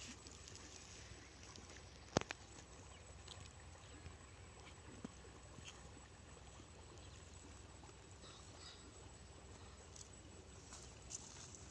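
Faint steady background hum with a few sharp clicks or taps, the loudest about two seconds in.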